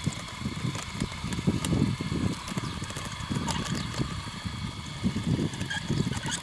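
Radio-controlled tracked loader crawling over dirt: a faint steady whine from its drive, with uneven low rumbling knocks and scattered clicks from the tracks.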